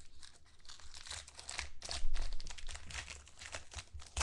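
Foil trading-card pack wrapper being torn open and peeled back by hand: a run of quick crinkling crackles, the loudest about halfway through.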